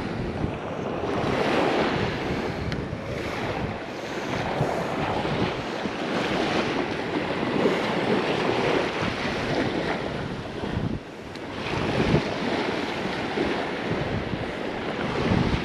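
Strong gusty wind buffeting the microphone over the steady wash of breaking surf, swelling and easing from gust to gust.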